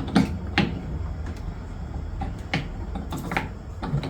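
Scattered light clicks and knocks, about half a dozen, over a steady low hum.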